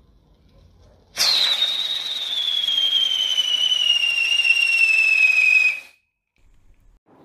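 Whistling whiz-wheel firework burning: a loud hissing whistle starts about a second in, its pitch sliding slowly down, and cuts off after about four and a half seconds.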